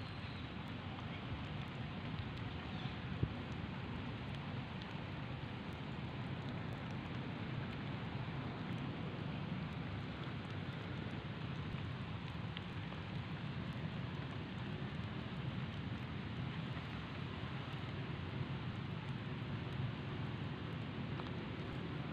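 Steady outdoor background hiss with a low rumble underneath, and one brief sharp click about three seconds in.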